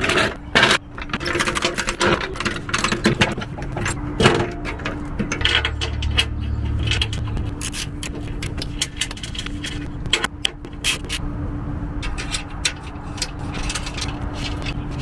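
Skid plate being fitted back under a car: irregular scrapes, knocks and clicks as the plate and its bolts are worked into place.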